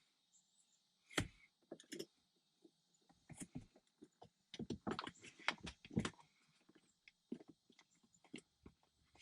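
Irregular clicks and knocks of a shift knob and extension being turned and worked by hand on a pickup truck's threaded automatic shift lever, with a sharp knock about a second in and a quick run of clicks in the middle.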